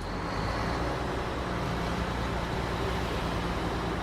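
Heavy diesel machinery, an excavator working a screening bucket, running steadily with an even low engine drone.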